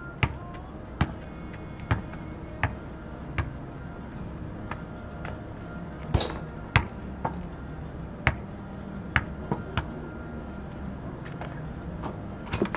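Basketball bouncing on a plastic tile court floor laid over concrete: a string of sharp bounces, roughly one a second and unevenly spaced, with a faint steady hum underneath.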